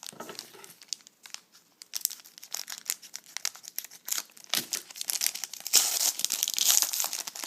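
Trading card pack wrapper crinkling and rustling as it is handled and opened. It comes in a run of crackles, densest about six seconds in.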